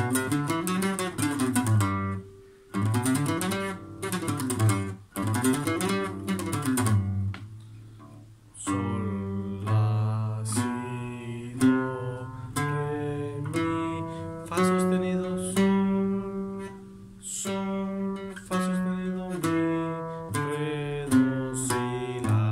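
A double-strung bajo-style acoustic guitar picked note by note, running a G major scale quickly up and down, in rising and falling runs. After a short gap, the scale is picked more slowly, one note at a time, each note ringing for about a second.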